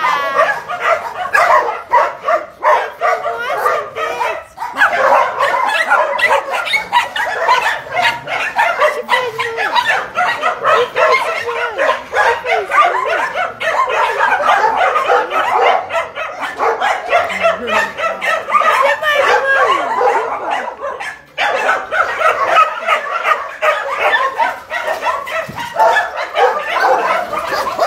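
Many shelter dogs in wire kennel pens barking and yipping at once, in a continuous din of overlapping calls. It breaks off briefly twice, about four seconds in and again about twenty-one seconds in.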